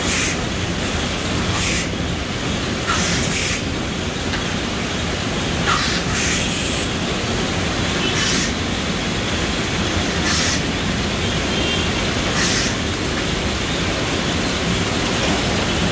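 Automatic apple tray-packing machine with vacuum suction-cup heads running steadily, with a short hiss of air about every two seconds as the suction cups grab and release apples.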